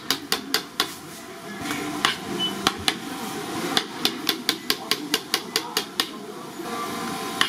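Quick sharp knocks of a hand tool striking a work board as handmade fish cakes are shaped, about three to four a second in uneven runs with brief lulls, over a steady background hum.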